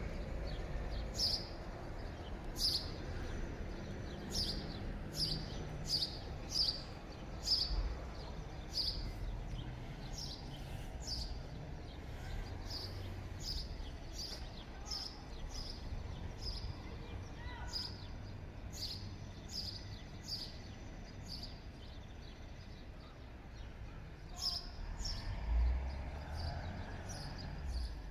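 A bird chirping over and over: short, high, falling chirps about once or twice a second, with a short pause near the end, over a low rumble.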